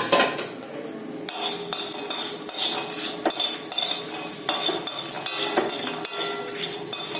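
Spatula scraping and stirring whole spices dry-roasting in a hot, oil-free kadai: a run of short rasping strokes, about two a second, starting about a second in after a single clink.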